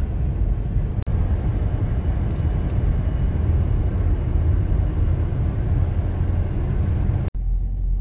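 Steady road and engine rumble of a car driving along, heard from inside the cabin. The sound breaks off sharply twice, once about a second in and once near the end.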